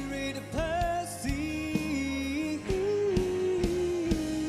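Male singer performing a pop song with a backing band, singing long held notes over steady accompaniment.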